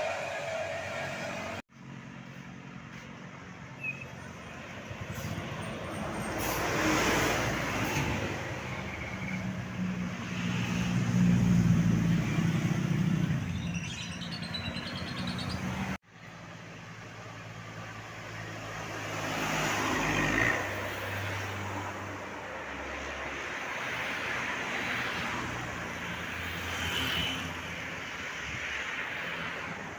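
Roadside traffic: engines of passing vehicles drone and swell as they go by, several times, with two abrupt cuts where clips are spliced together.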